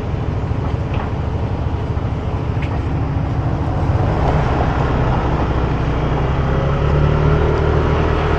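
Motor scooter's engine running steadily while riding along a road, with road and wind noise; it grows a little louder about halfway through.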